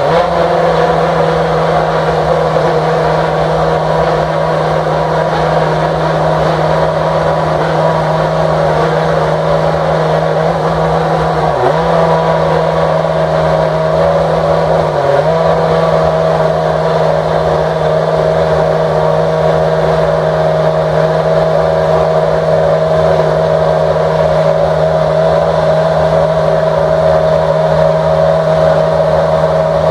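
Red Bull RB8 Formula One car's Renault V8 engine idling steadily after a fire-up, with two brief dips in engine speed about twelve and fifteen seconds in.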